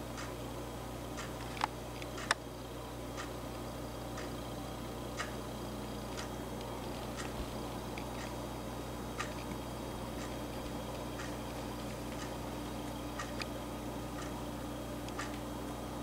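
Steady ticking about once a second, with two sharper clicks in the first few seconds, over a constant low hum.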